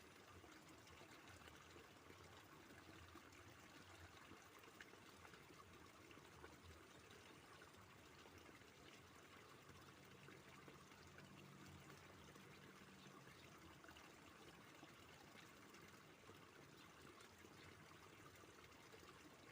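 Faint, steady trickle of flowing stream water.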